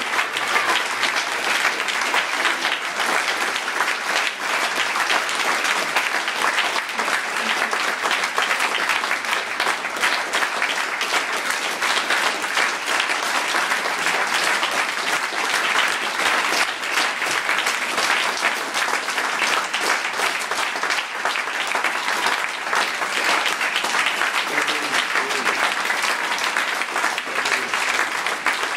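An opera audience clapping steadily in a standing ovation at the curtain call, a dense, unbroken sound of many hands.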